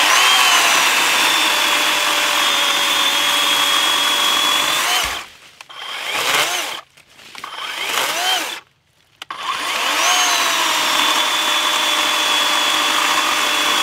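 Worx 40-volt cordless electric chainsaw with a 14-inch bar cutting through a log, its motor a steady high whine over the chain's cutting noise. About five seconds in the trigger is let off. Two short revs wind up and down, the saw stops briefly, then it runs steadily through another cut.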